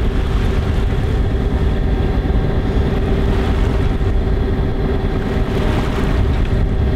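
A sailing yacht's inboard engine running steadily under way, a constant low drone with a steady hum over it.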